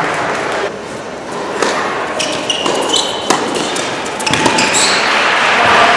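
Tennis rally on an indoor hard court: sharp racket hits and ball bounces every half second or so, with brief high squeaks of shoes on the court, then applause building near the end.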